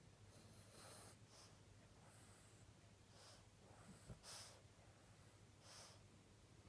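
A sleeping dog snoring and snorting faintly, a breathy snort every second or so, with a short low knock about four seconds in as it flinches in its sleep.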